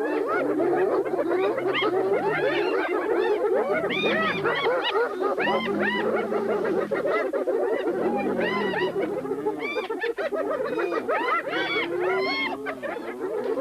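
A clan of spotted hyenas calling all at once in a dense, unbroken chorus of overlapping yelping calls that rise and fall in pitch, with deeper calls underneath. This is the excited clamour of a clan crowding a lioness off a kill.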